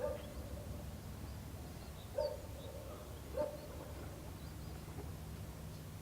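Three short animal calls a second or more apart, each starting sharply and holding one pitch briefly, over a steady low background rumble, with a few faint high bird chirps.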